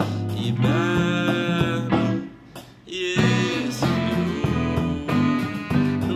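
A band playing a song: a male voice singing over hollow-body electric guitar and electric bass. The music briefly drops out a little over two seconds in, then comes back in.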